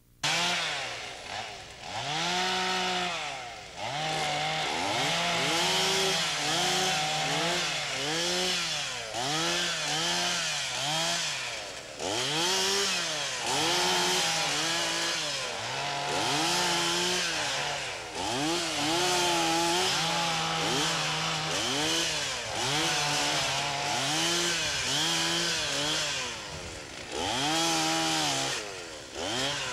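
Two-stroke chainsaw cutting brush. The engine revs up and drops back again and again, mostly about once a second, and is now and then held at full throttle for a second or two.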